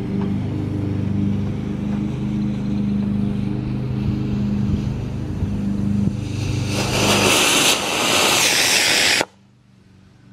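Homemade sugar rocket motor igniting on the ground with a loud hissing rush that builds about seven seconds in and stops abruptly after about two and a half seconds, while the rocket pours out smoke instead of lifting off. A steady low hum lies under the first part.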